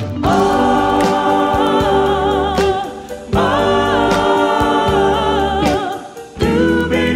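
Background music: a song with sung vocals holding long notes with vibrato, with short breaks about three and six seconds in.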